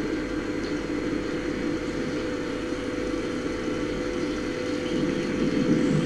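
Steady engine-and-sea rumble of a research ship, played back over loudspeakers into a room, with a steady hum running through it.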